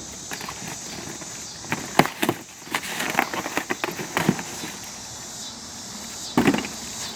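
Box being torn open and its packaging handled: a run of irregular rips, clicks and rustles, busiest in the middle and again near the end. A steady chorus of crickets runs behind.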